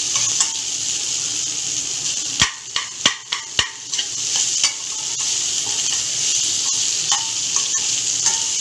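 A spatula stirring and scraping boiled potato cubes and fried onions around a metal kadai, with steady sizzling from the hot oil. A few sharp knocks of the spatula against the pan come about two and a half to three and a half seconds in, as the potatoes are broken up.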